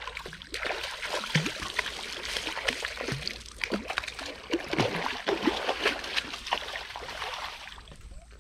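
A hooked turtle splashing and thrashing at the water's surface as it is reeled in to the bank, in irregular splashes.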